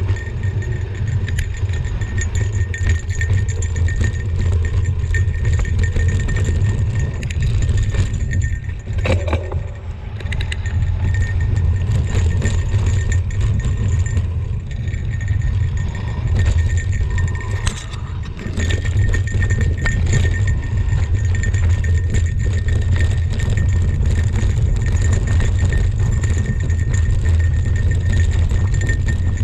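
Mountain bike rolling down a rough dirt trail, heard through a GoPro: a steady low rumble of wind and trail vibration on the microphone, with scattered clicks and rattles from the bike.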